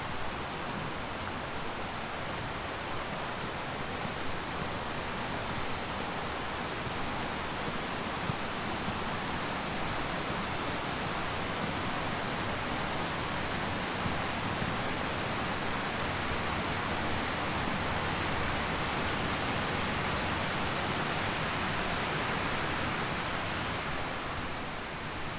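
Steady rushing noise like flowing water, swelling slightly and then easing just before the end.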